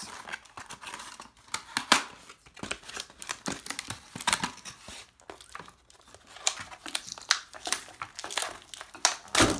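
Cardboard blaster box being torn apart by hand: irregular ripping and crinkling, with a louder rip about two seconds in and another near the end.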